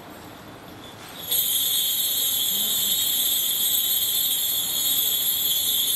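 A loud, steady, shrill high-pitched drone of summer cicadas that starts abruptly about a second in.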